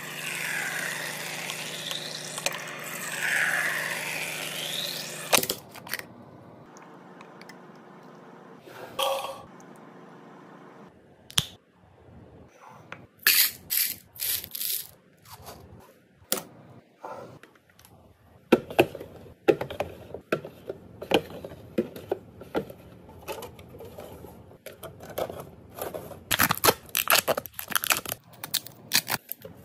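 Items being handled and set into a mini fridge: a rubbing, squeaking sound that sweeps up and down in pitch for the first five seconds, then many irregular clicks, taps and light clatters of packaged drinks and containers, busiest in the second half.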